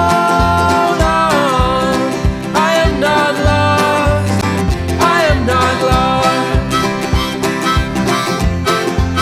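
Background music: a country-folk track with plucked banjo and guitar over a steady low bass pulse.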